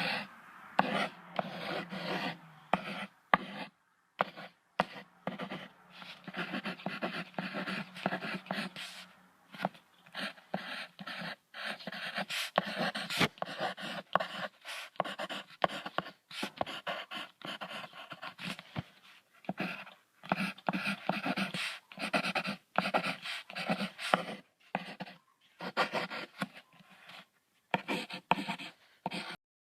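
Rabbit sounds: quick runs of short, breathy noises broken by brief pauses.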